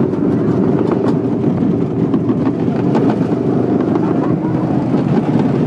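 Go-kart engines running steadily as the karts drive around the track, a dense, even engine drone close to the microphone.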